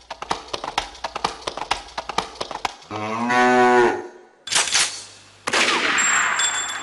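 A bull's moo: one long call that falls slightly in pitch, about three seconds in. Before it comes a rapid run of sharp clicks, and after it two bursts of hissing noise.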